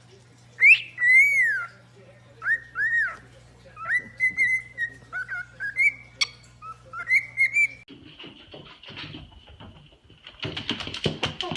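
A pet parrot whistling a run of clear notes, each sliding up and then down, for about eight seconds. After that come a faint steady high tone and some clattering noise.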